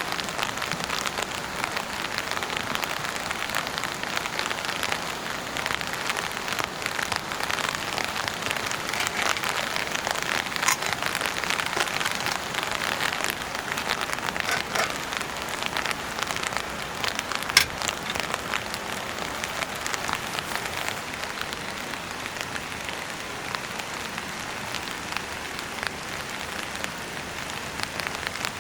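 Steady rain falling, a dense spread of individual drop hits with a couple of sharper, louder drops, easing slightly in the last third.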